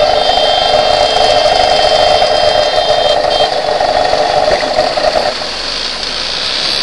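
Two-stroke scooter engines running in a slow-moving pack, led by the Vespa PX's own engine close to the microphone, with a steady drone and some rattle. The drone eases off about five seconds in.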